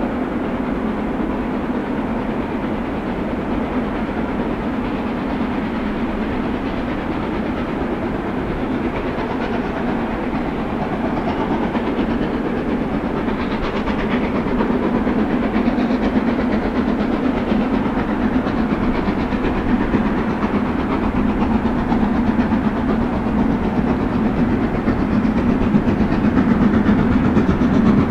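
Narrow-gauge steam train of the Harzquerbahn running on the rails, a steady rumble and clatter that grows louder over the last third.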